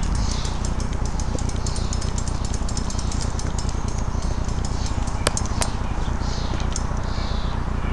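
Outdoor ambience: a steady low rumble on the microphone, with repeated short high chirps and a rapid run of thin high ticks. Two sharp clicks come a little past halfway.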